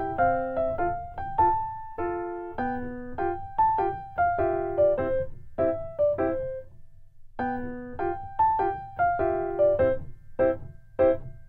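Background music: a light piano melody played note by note, with a brief pause about seven seconds in.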